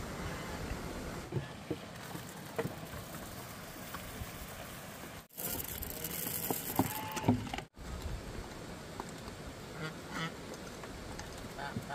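Domestic ducks quacking, several short calls over a steady background hiss. The sound cuts out abruptly twice around the middle.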